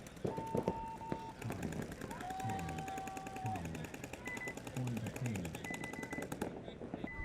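Paintball markers firing in rapid streams of many shots a second, with shouting voices over them. The firing stops abruptly about six and a half seconds in.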